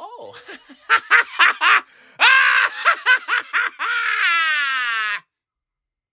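A run of loud, short laughs and shrieks, then one long high-pitched yell that sinks slightly in pitch and cuts off abruptly about five seconds in.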